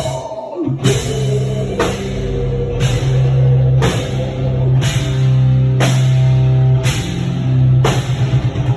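Instrumental passage of a metalcore song: a low, sustained distorted guitar and bass note under heavy drums, with crash hits landing about once a second in a slow, pounding beat.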